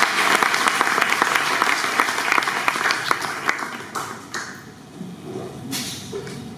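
Audience applauding in a hall, dense clapping that fades out after about four seconds, with a brief last flurry of claps near the end.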